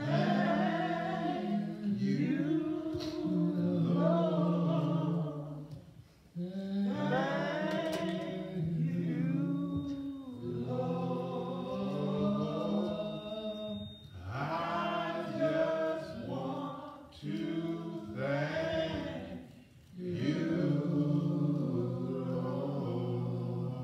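A man's voice singing a slow church hymn into a microphone, long held notes in phrases of a few seconds with short breaks for breath between them.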